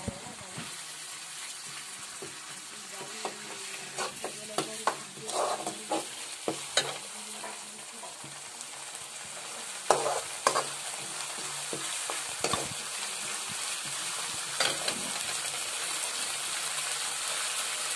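Spice paste sizzling in hot oil in a metal kadai on a gas stove, the sizzle growing gradually louder. A steel spoon scrapes and clinks against the pan now and then as it is stirred, most often around the middle.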